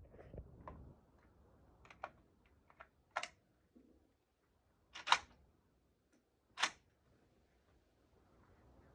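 Rifle shots at a shooting range, heard quietly: about five sharp, short cracks at irregular intervals, the loudest about five seconds in.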